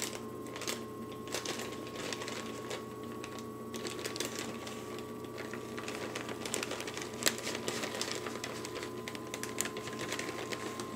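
Irregular light taps and clicks of shredded mozzarella being sprinkled and pushed around by hand over pasta in a baking pan, over a steady hum with a faint tone.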